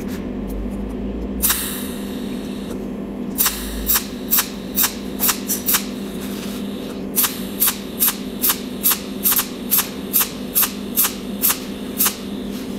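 Cold welding machine laying a row of pulsed spot welds, each arc pulse a sharp crack, about two to three a second, with a pause in the middle, over a steady hum.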